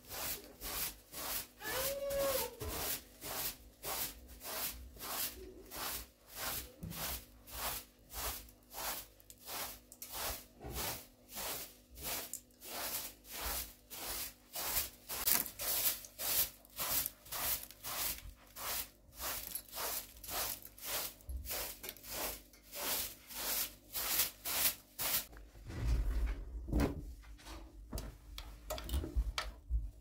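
Straw broom sweeping a carpet in quick, regular strokes, about two a second. The sweeping stops about 25 seconds in, followed by a few low thumps.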